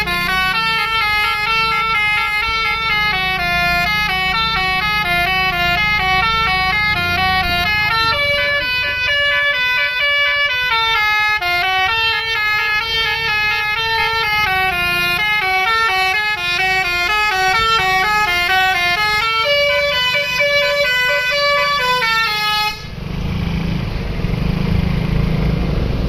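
Basuri multi-tone musical air horn on a Bris Trans coach playing a "telolet" melody, loud stepped notes, several at once, for about 23 seconds. It then cuts off abruptly to the coach's engine running with a low rumble.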